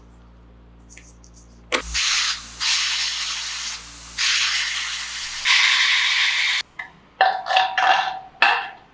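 Compressed air hissing from a tyre inflator into a scooter tyre in four long bursts, starting about two seconds in and stopping suddenly. A few short knocks follow near the end.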